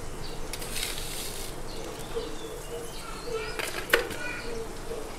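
A wooden spatula stirring thin sauce in a frying pan, with a single sharp knock just before four seconds in.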